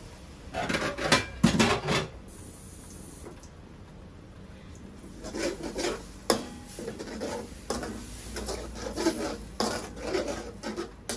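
Metal slotted spatula scraping and clinking against a stainless steel wok while stirring a thin masala gravy. It comes in two spells, about a second in and again from about five seconds in, with a few sharper clanks in the second spell.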